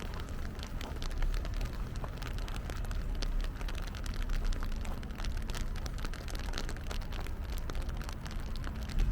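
Rain falling on the street, heard as a dense patter of small drop ticks over a steady low rumble.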